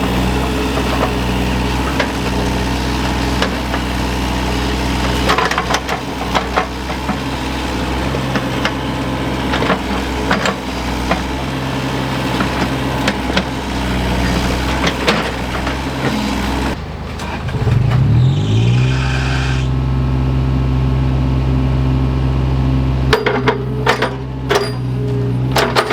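Diesel engine of a mini excavator running steadily under repeated knocks and clanks of the bucket working soil and debris. About 17 seconds in the engine dips, then revs up and holds a higher speed. A run of knocks comes near the end.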